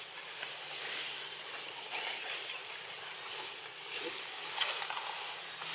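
Outdoor background hiss, steady throughout, with a few faint clicks and rustles.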